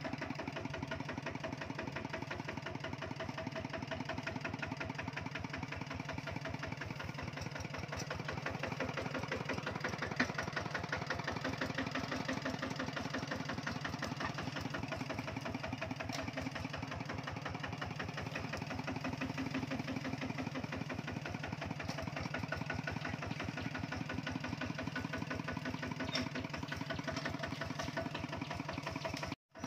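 Kubota two-wheel walking tractor's single-cylinder diesel engine chugging steadily as it pulls a loaded straw trailer, each firing stroke heard as an even, rapid beat.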